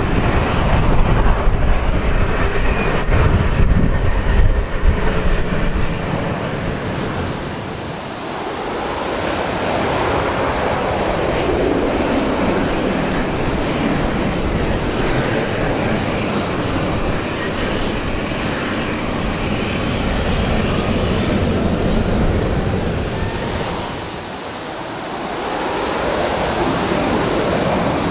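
Twin-engine jet airliners landing at close range: a deep engine rumble from a jet on the runway for the first few seconds, then the broad roar of jets passing low overhead on final approach, swelling and sweeping twice.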